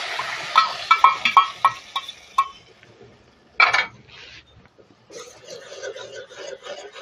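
Tomato chutney sizzling in hot oil in a wok just after being poured in, the sizzle fading over about two seconds, with a run of sharp taps as the bowl is knocked against the pan. Then a spatula stirring and scraping the chutney around the wok in a quick, even rhythm.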